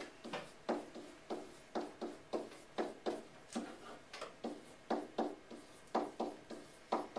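Pen strokes on an interactive whiteboard as dollar signs are drawn: a run of short, sharp scrapes and taps, about two a second, unevenly spaced.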